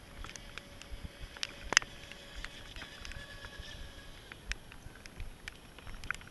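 Faint, distant whine of an RC speedboat's brushless electric motor running out on the lake, under many irregular sharp ticks and taps close to the microphone, the loudest a little under two seconds in.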